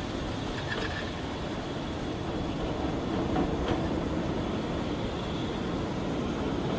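Freight train on an electrified line running by: a steady rumble of wheels on the rails, with a few faint clicks about halfway through.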